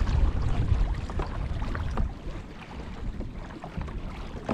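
Wind buffeting the microphone over water noise on a kayak at sea, a low rumble that eases after about two seconds, with faint scattered ticks and splashes.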